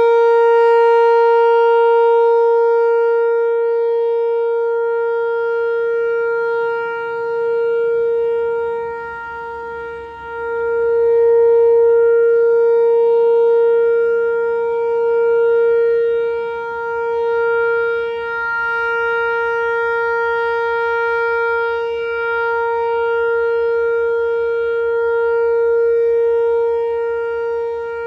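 Whelen Vortex outdoor warning siren sounding a steady tone at one unchanging pitch, its loudness swelling and fading every few seconds as the head rotates, during a monthly siren test.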